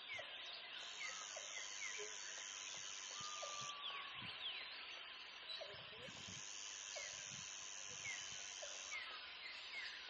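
Faint rainforest wildlife chorus: a dense background of birds and insects with many short chirps and whistles, and a high steady buzz that comes in spells of about three seconds, twice.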